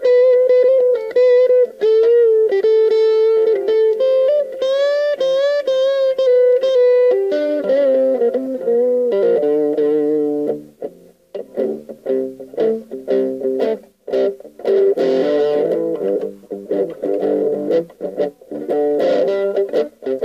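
Electric guitar with an overdriven 'brown sound' tone, played unaccompanied. First comes a sustained single-note lead line with bends and vibrato. About seven seconds in it switches to choppy, stop-start chord riffs.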